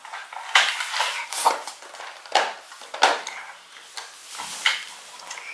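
Hard plastic clicks and knocks, about half a dozen spread out, as a Playmobil toy jet is handled and its hinged cockpit window is lifted open.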